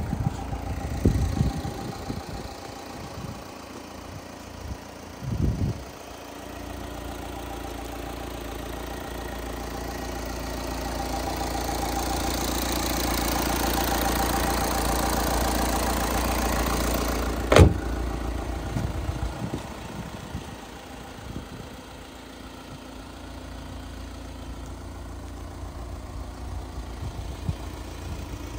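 Volkswagen Transporter 2.0 TDI four-cylinder turbodiesel idling steadily, louder in the middle where it is heard close up over the open engine bay. A few bumps near the start and one sharp click a little past halfway.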